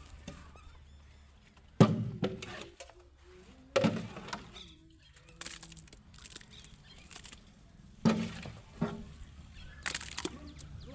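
A handful of sharp knocks and clatters, about five spread over nine seconds, each dying away quickly; the first, about two seconds in, and the one about eight seconds in are the loudest.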